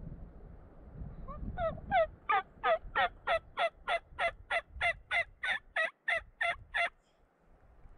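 Turkey yelping: a long, even run of about eighteen yelps, about three a second, each note falling in pitch, soft at first and quickly growing loud, then stopping abruptly. Low wind rumble on the microphone comes before it.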